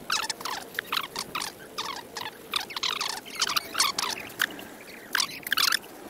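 Raindrops pattering on an umbrella canopy: quick, irregular sharp taps, several a second, over a faint hiss of rain.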